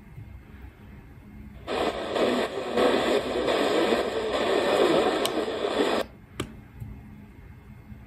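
Retekess V115 portable shortwave radio tuning through the 49-metre band. It stays muted at first, then about two seconds in it opens on a station and plays noisy, static-laden AM broadcast audio through its small speaker for about four seconds, before cutting off suddenly as it mutes and moves on up the band.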